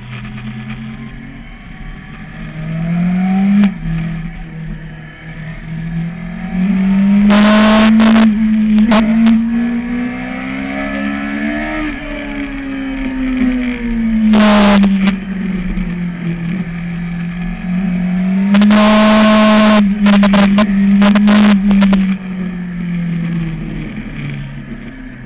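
Sport motorcycle engine heard from the rider's seat while riding, its pitch rising and falling with the throttle through a run of bends. Several loud harsh bursts of noise break over it, about a third of the way in, in the middle, and again for a couple of seconds after the middle.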